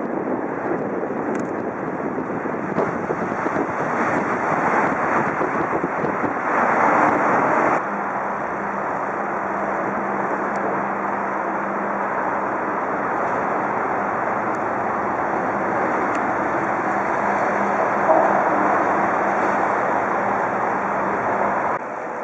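Steady outdoor harbour noise with wind on the microphone. About eight seconds in the noise drops and a steady low hum comes in under it.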